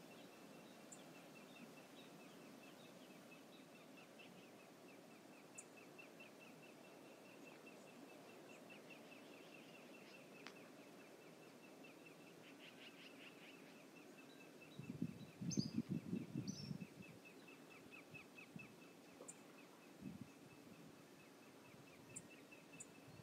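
Faint outdoor ambience at a river cove: a steady low wash with a faint run of high ticks, about four a second. About fifteen seconds in comes a louder low rush of noise lasting about two seconds, with a couple of short high chirps around it.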